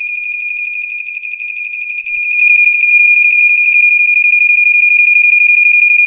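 General Electric 8201-401C ionization smoke alarm sounding a continuous high-pitched alarm tone, set off by canned test smoke; it grows louder about two seconds in.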